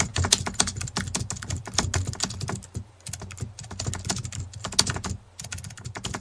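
Rapid, irregular computer-keyboard typing clicks over a low hum: a typing sound effect.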